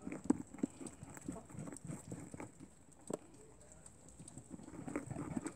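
Faint, irregular small taps and scuffles of month-old German lop rabbit kits shifting about in a plastic tub, with one sharper tap about three seconds in.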